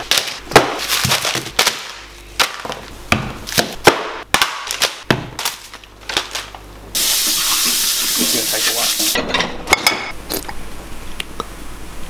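A rapid string of kitchen handling sounds: sharp clicks, knocks and clatters of containers and dishes. About seven seconds in, a loud steady hiss runs for about two seconds and cuts off suddenly, followed by a few more clicks and a softer hiss.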